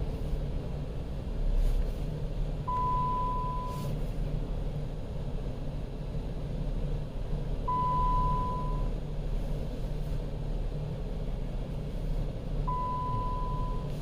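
A single-pitch electronic beep, each just over a second long, sounds three times about five seconds apart over a low steady rumble.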